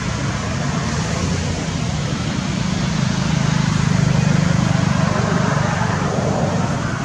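Steady, fairly loud outdoor background noise with a low rumble, swelling a little midway. It has no distinct events in it.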